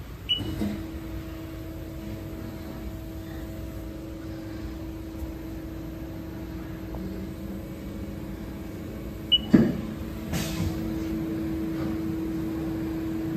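Haas ST-20Y CNC lathe powering up: a short beep and click as a control-panel key is pressed, then a steady electrical hum as the machine comes on. About nine and a half seconds in comes another beep and a sharp clunk, after which the hum gets louder.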